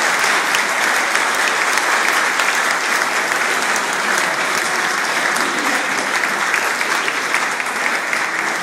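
A small crowd of wedding guests applauding steadily, with dense, continuous clapping.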